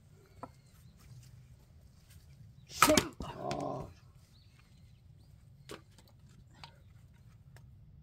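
A splitting axe is swung down into a log standing on a chopping block, giving one loud sharp crack as the blade bites and the wood splits, about three seconds in. A short cry follows straight after. A few faint knocks of wood are heard elsewhere.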